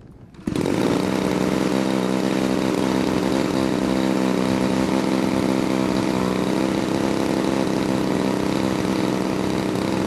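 DLE 30cc single-cylinder two-stroke petrol engine on a large model aircraft firing up about half a second in, then running steadily and loudly.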